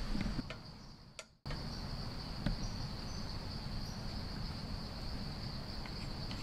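Steady, high-pitched chorus of insects. The sound fades almost to nothing and then cuts back in about a second and a half in.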